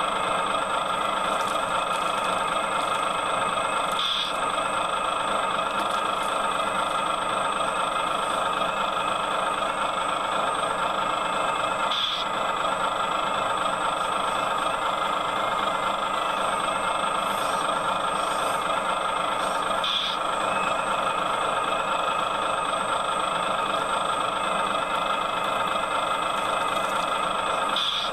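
Excavator's diesel engine running steadily, with a thin high whine throughout and a brief click about every eight seconds.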